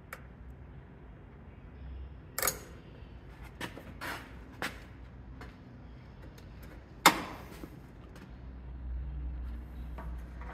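Sharp metallic clicks and snaps of locking pliers being set and clamped onto a hose to pinch it shut. There are several small clicks, then one loud snap about seven seconds in, over a low rumble.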